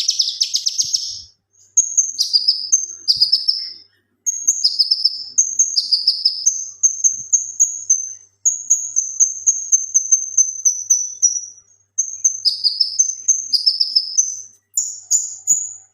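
A male cucak kinoi in full song. It opens with a dense, rapid trill in the first second, then runs through phrases of high, clear notes repeated several times a second, some of them falling in pitch, with short pauses between the phrases.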